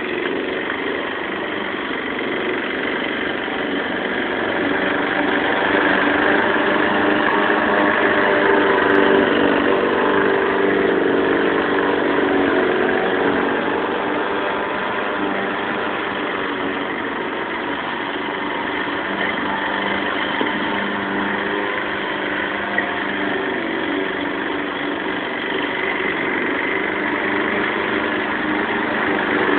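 Lawn mower engine running steadily, growing louder for several seconds about a fifth of the way in and again near the end.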